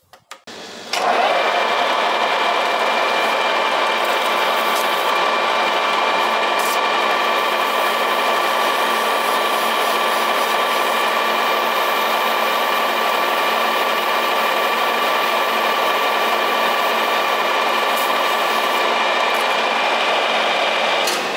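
Metal lathe starting about a second in and running steadily with a whine, spinning a 4L60E transmission shaft while its bush and seal journals are polished smooth with fine-grit abrasive paper; it stops near the end.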